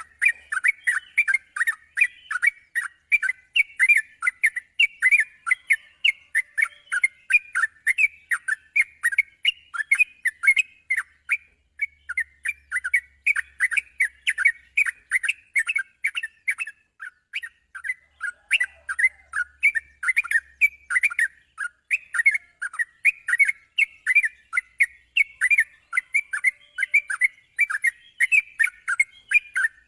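Yellow-vented bulbul (trucukan) chattering in a continuous string of short, bubbly chirps, about three to four a second.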